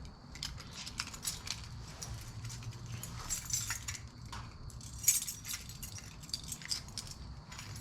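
Scattered light clicks and clinks of small metal items being handled, the sharpest about five seconds in, over a low steady hum.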